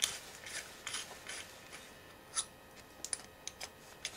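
Small irregular metal clicks and taps as a tool works the big threaded ring at the bottom of a Kollsman periscopic sextant, trying to unscrew it; about eight clicks, the loudest about two and a half seconds in.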